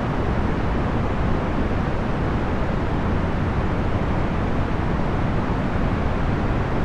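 Procedurally generated box-fan noise: a steady, even low rushing, heaviest in the bass and fading off in the highs, with no motor whine, rattle or change.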